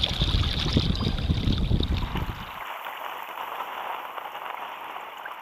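Wind buffeting the microphone over choppy sea water, with the steady hiss and slosh of waves. About two and a half seconds in, the wind rumble cuts out suddenly and only the quieter rush of water remains.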